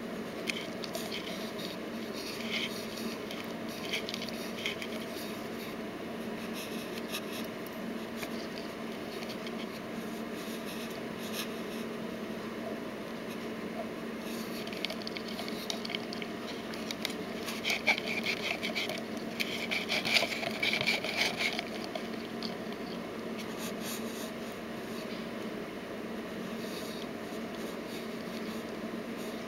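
Faint scattered scratching and clicking over a steady low hum, the scratching busiest about halfway through.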